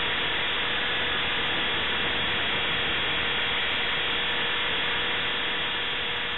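Align T-Rex 450S electric RC helicopter heard from its onboard camera: a steady whine from the motor and drive gears under the spinning rotor. The level starts to fall off near the end.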